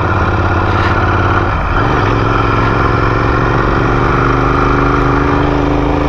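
Royal Enfield motorcycle engine running while riding. About one and a half seconds in, the engine note briefly dips, then climbs slowly.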